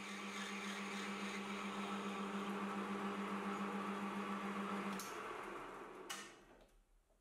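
Warco GH1330 gear-head metal lathe running with a steady hum while parting off a brass bead. About five seconds in, the hum cuts off with a click and the spindle spins down to a stop, with another click about a second later.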